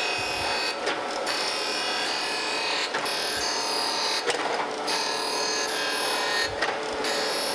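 Landis surface grinder's abrasive wheel dry-grinding the bottom face of a camel-back straight-edge casting, a steady shrill hiss with a high whine, taking a light cleanup cut. The grinding sound breaks off briefly every second or two.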